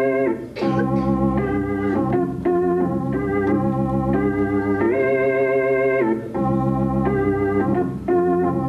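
Background music: an electronic organ-like keyboard playing a melody of held notes over a steady low accompaniment.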